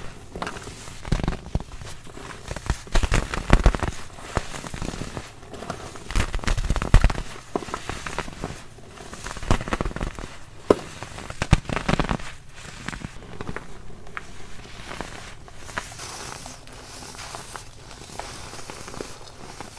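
Baking soda being crushed and crumbled, a dense, irregular crunching and crackling, heavier in the first twelve seconds and lighter after.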